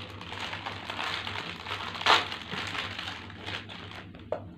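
A snack packet wrapper crinkling and crackling as it is handled and torn open, with one sharper, louder crackle about two seconds in.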